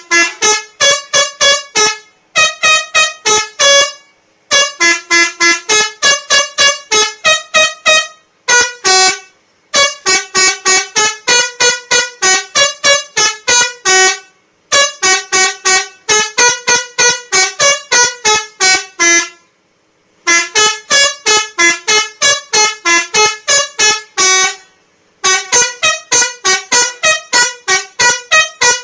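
Telolet horn, the multi-tone horn fitted to Indonesian buses, playing quick melodic runs of short notes, about five a second, in phrases a few seconds long with brief pauses between.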